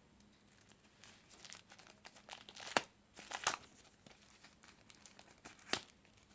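Packaging being handled and crinkled, irregular rustling broken by three sharp crackles, the loudest about halfway through.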